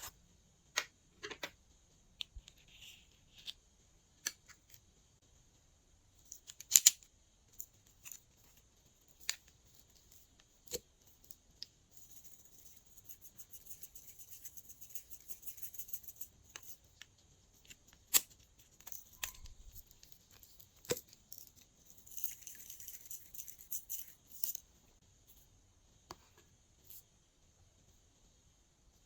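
Close-up handling sounds of slime-making: scattered sharp clicks and taps, a louder double click about a quarter of the way in, and two stretches of rapid crinkly crackling, one in the middle and one near the end.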